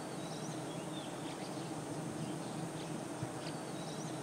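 Steady, low droning hum of a large mass of wild giant honey bees massed on their open hanging combs. A few short, high bird chirps sound over it.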